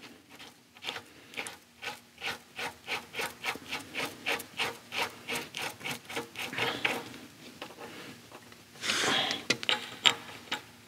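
Repeated rubbing strokes, about three a second, followed about nine seconds in by a louder, longer rub.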